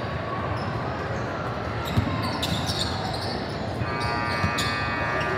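Basketball bouncing on an indoor court during a game, with knocks of play over a steady background of voices. There is a sharp thump about two seconds in, and a held pitched tone comes in near the end.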